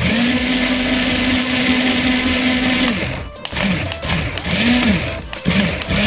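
Small plastic DC gear motors of a toy RC car running at full speed for about three seconds with a steady whine, then started and stopped in several short runs, the pitch rising and falling each time.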